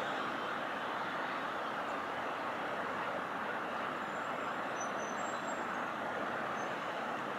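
Steady, distant roar of a Boeing 777's twin jet engines as the airliner climbs out.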